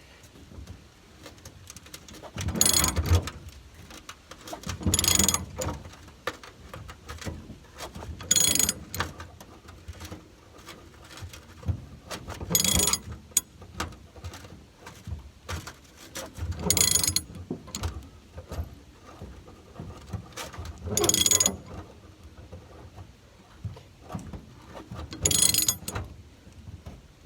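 Hand ratchet driving a T55 Torx bit to back out a truck bed bolt. Short loud bursts of rapid ratchet clicking come about every four seconds, with faint clicks and creaks between strokes.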